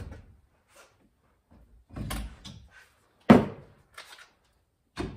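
Makita cordless drills being handled and hung on a stainless steel wall tool rack: a few separate clunks and clacks of plastic tool bodies on metal, the loudest a sharp knock about three seconds in.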